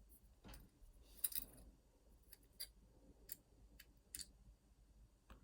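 Faint, scattered light metallic clicks as a key is worked in an Opnus TEX lock cylinder, turning the core so the lock can be taken apart. The clearest click comes about a second in.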